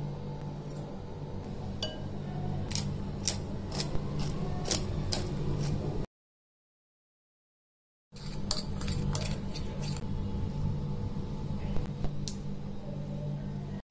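Light clinks of a jar and utensils against a glass mixing bowl as spices are added, scattered over a steady low hum. The sound cuts out completely for about two seconds in the middle.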